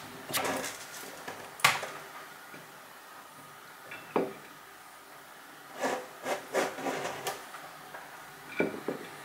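Scattered light knocks, taps and rustles of vegetable prep at a kitchen counter: a metal colander and bean sprouts handled at the sink and on a plate on the wooden countertop. There is a sharp knock about a second and a half in and a run of quick taps a little past the middle.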